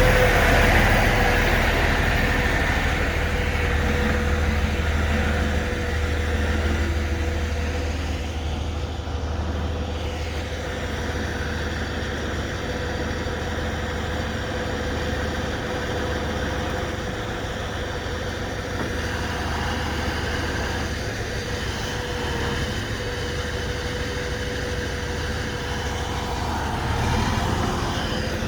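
Heavy rotator tow truck's engine running steadily, with a steady whine held above the low engine hum.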